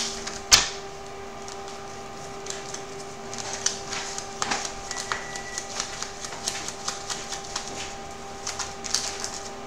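A deck of cards being hand-shuffled: a long run of small, irregular card clicks and flicks, with one sharp knock about half a second in. A steady hum runs underneath.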